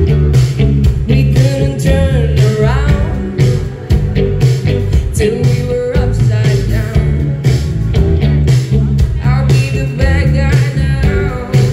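A live band playing a rock-pop song: a singer's voice over electric guitars, bass and drums, loud and full in the low end.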